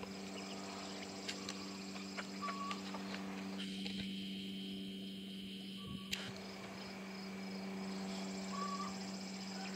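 Faint outdoor yard ambience: a steady low hum under insect noise, with scattered soft clicks and a couple of short bird chirps.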